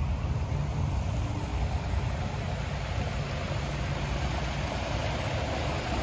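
Rushing water from a small rock waterfall spilling into a pond, a steady hiss that grows louder over the second half, over a steady low rumble.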